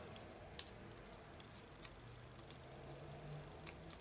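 Faint handling of paper and card: a few light, scattered clicks and rustles as glued pieces are placed and pressed down.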